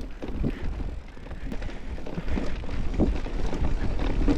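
Mountain bike riding over a rough dirt trail: tyre noise with scattered clicks and rattles from the bike, over a steady low wind rumble on the microphone.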